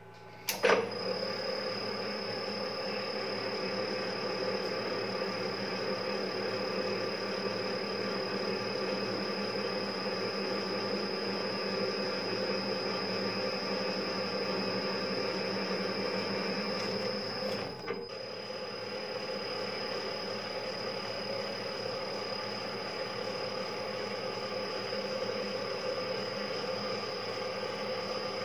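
Small metal lathe switched on with a click about half a second in, then running steadily with a constant high whine while its chuck turns a metal rod and a threading tool cuts a thread on it. The sound dips briefly about 18 seconds in and then carries on.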